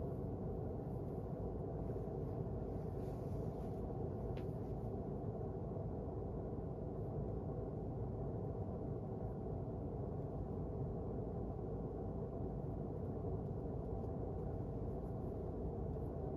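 Steady low background hum of room tone, with no distinct events apart from a faint tick about four seconds in.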